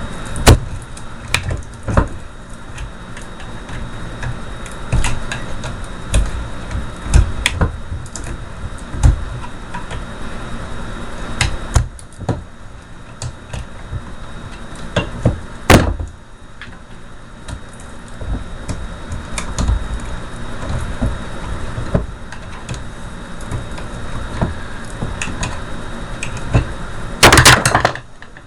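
Screwdriver prying copper windings out of a car starter motor armature: irregular clicks, knocks and scrapes of metal on metal, with a brief louder burst of rattling near the end.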